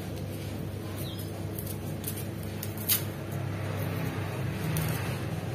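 A steady low hum with a few faint, sharp clicks from a kitchen knife peeling shallots; the clearest click comes about three seconds in.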